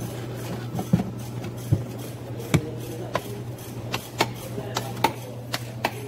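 Hard plastic knocks and clicks, about eight of them, as the air intake duct and air cleaner box are pushed back into place in the engine bay, over a steady low hum.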